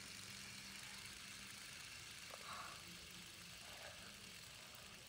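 Faint steady whirr of two fidget spinners, one stacked on the other, spinning freely on their ball bearings in a hand. The hum fades a little past halfway, with a faint tick about two seconds in.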